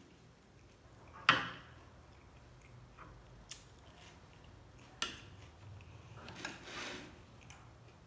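Toasted cheese sandwich being bitten and chewed: a loud sharp crunch about a second in, two smaller crunches later, and a stretch of chewing near the end.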